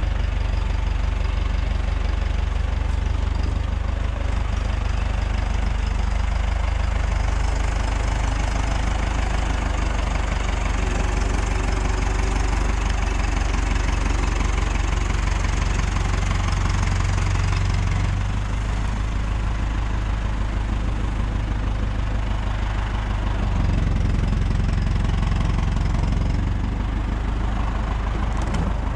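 Tractor diesel engine running steadily close by, its level dropping about two-thirds of the way through and rising again for a few seconds near the end as the loader works.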